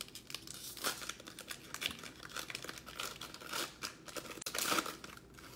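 Foil wrapper of a football trading-card pack crinkling and tearing as it is torn open by hand. The crackling is uneven, with louder crackles about a second in and again near the end.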